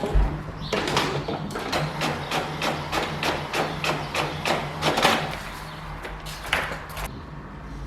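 A rapid, even run of sharp knocks, about four a second, lasting some four seconds, with one more knock a little later, over a steady low hum.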